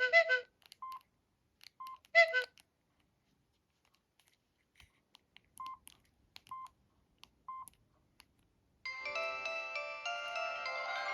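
Samsung SGH-D500 mobile phone sounds: two short multi-note chirps, one at the start and one about two seconds in, then a few short single keypad beeps about a second apart. About nine seconds in, a polyphonic ringtone melody starts playing.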